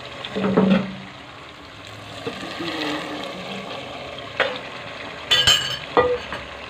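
Chicken masala sizzling in a pot as fried stuffed green chillies are added and stirred in. A knock about half a second in, and sharp clatters of a utensil against the pot, one ringing, near the end.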